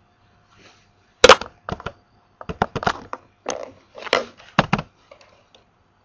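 Computer keyboard keystrokes and mouse clicks close to the microphone: about a dozen sharp, irregular clacks starting about a second in, some in quick runs.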